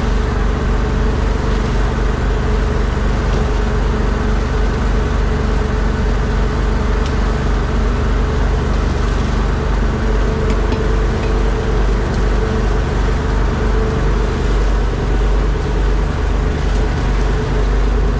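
Boat engine running steadily at a constant speed, a loud low drone that does not change.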